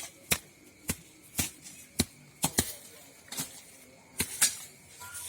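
A series of sharp clicks or knocks, about two a second, unevenly spaced.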